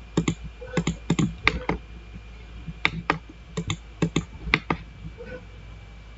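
Computer keyboard keys and mouse buttons clicking in quick, irregular little runs while lines are trimmed in AutoCAD.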